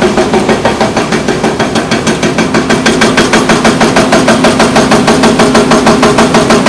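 A machine running with a rapid, even pulsing of about six beats a second over a steady hum.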